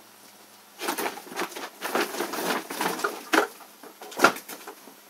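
Woven plastic bag rustling and crinkling as a cat thrashes about inside it: a quick, irregular run of crackles starting about a second in, with the loudest crackle near the end before it settles.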